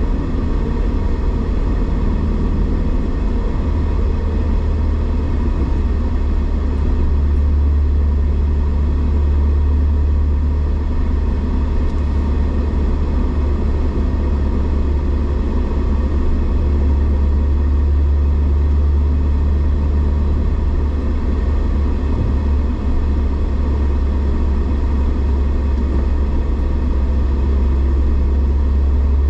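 Steady low rumble of a car driving at highway speed, heard from inside the cabin: tyre, road and engine noise with no breaks or changes.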